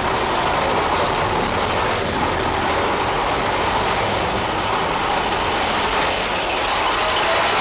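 Big Thunder Mountain Railroad mine-train roller coaster running along its track, heard from on board as a steady rumble of the cars' wheels on the rails.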